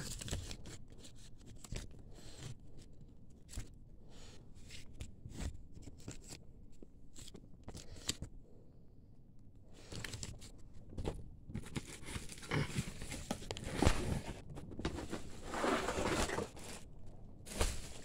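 Paper instruction sheets and packaging being handled. At first there are scattered soft rustles and ticks; from about halfway it becomes busier, louder crinkling and rustling of paper and plastic.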